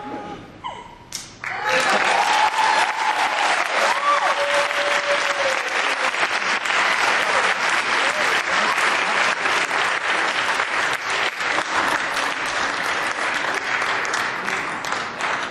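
Theatre audience applauding, breaking out about a second and a half in and going on steadily, with a few cheering voices in the first few seconds.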